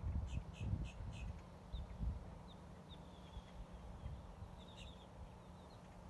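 A flock of birds calling: a quick run of four short calls in the first second or so, then scattered short high chirps. Underneath, a low gusting rumble of wind on the microphone, loudest in the first two seconds.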